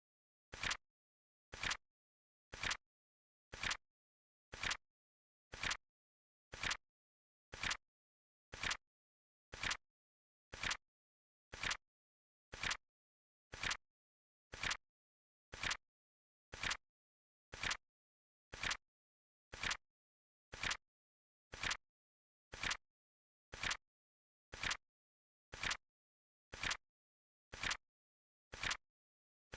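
Flip clock sound effect: a short, sharp flip click about once a second, evenly spaced, counting down the seconds.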